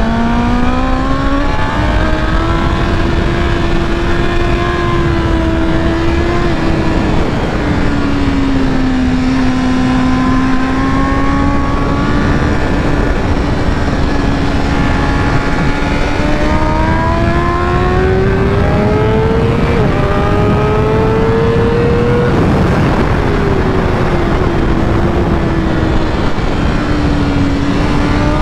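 BMW M 1000 RR's inline-four engine on track. Its pitch rises and falls with the throttle, climbs steadily through the middle stretch, then drops sharply about three-quarters of the way through as the rider rolls off and brakes. Heavy wind rush runs beneath it all.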